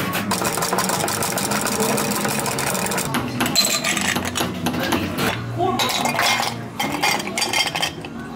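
Ice cubes clinking and rattling as they are scooped with a metal ice scoop into glass mugs. There is a dense clatter for the first three seconds or so, then separate clinks.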